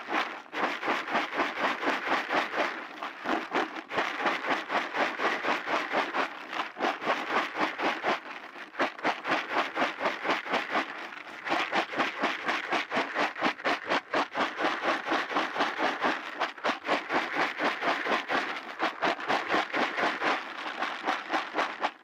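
Carp pellets rattling and scraping around a bucket as it is shaken and swirled by hand to coat them in flavoured sunflower oil, in a fast steady rhythm of about four or five strokes a second, with a few brief pauses.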